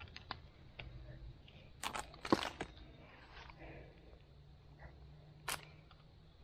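Sharp plastic clicks and knocks from a trail camera being handled and fastened to a tree trunk: a quick cluster about two seconds in and a single click near the end.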